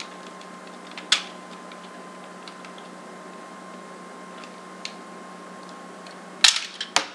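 Hard plastic parts of a Power Rangers RPM High Octane Megazord toy clicking and clacking as its back piece is pulled off: one sharp click about a second in, a few faint ticks, then a quick run of sharp clacks near the end.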